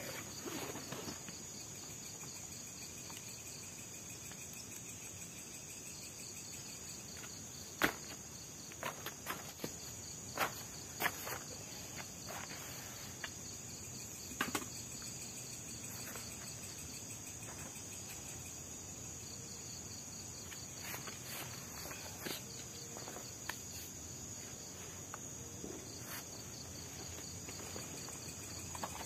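A steady high insect chorus of night crickets. A few sharp clicks and knocks of camping gear being handled and set down come between about 8 and 15 seconds in.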